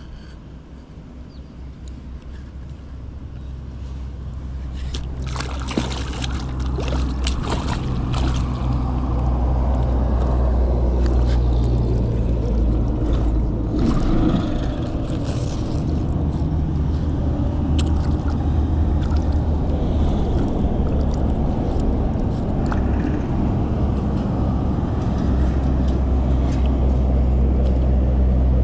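A steady low motor rumble that grows louder over the first ten seconds or so and then holds steady, with a few brief noisy bursts between about five and eight seconds in.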